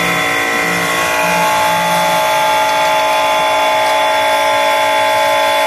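Steady machine whine with several constant pitches, unchanging throughout, from workshop equipment running.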